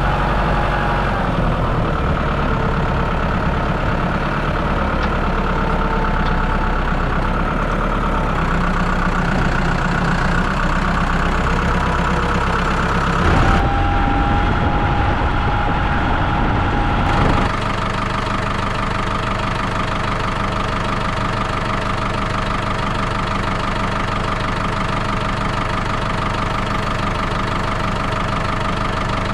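Vehicle engine running steadily. About halfway through it grows louder with a higher whine for a few seconds, then settles back to a steady, slightly quieter run.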